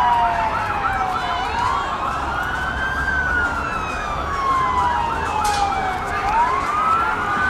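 Police vehicle sirens: one slow wail that climbs quickly and then falls slowly over about three seconds, going round twice, over a second siren warbling fast, about four times a second.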